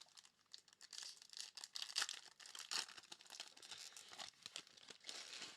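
A trading-card pack wrapper being torn open and crinkled in the hands, a run of irregular crackles and rips.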